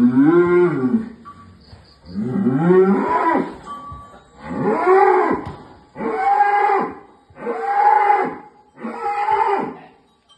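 A large bull of about one tonne mooing loudly six times, each call about a second long and rising then falling in pitch, the calls a little under two seconds apart and the later ones shorter and higher.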